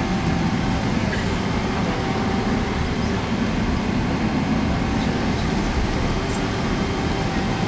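Steady cabin noise inside a Boeing 777-300 airliner: the even rumble of the engines and cabin air, with a faint steady hum over it.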